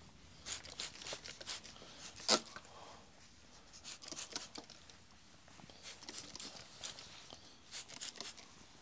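Short, faint spritzes from a handheld plastic spray bottle wetting hair, coming at irregular intervals, with one sharper click about two seconds in.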